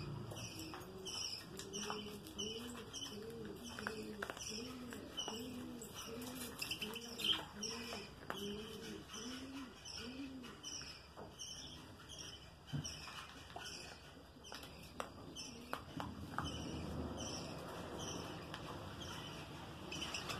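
A dove coos over and over in a low, even rhythm of about two coos a second, stopping about halfway through. Short high bird chirps repeat steadily throughout.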